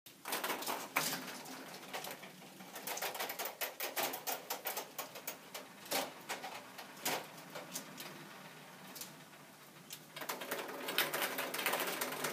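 Plastic K'Nex fruit machine mechanism clicking and rattling as the handle is pulled and the reels spin and stop one by one. From about ten seconds in, a dense clatter of ping-pong balls rolling out into the payout tray for an 8-ball win.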